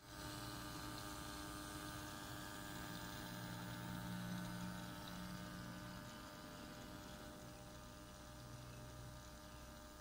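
Water trickling and splashing down a tabletop bamboo cascade fountain, spilling from spout to cup, over a steady low hum from its small electric pump.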